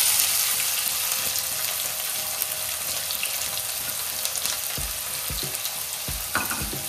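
Chopped red onion sizzling in hot oil in a steel kadhai, a dense steady hiss that is loudest as the onion goes in and slowly eases. A few faint low knocks come in the second half.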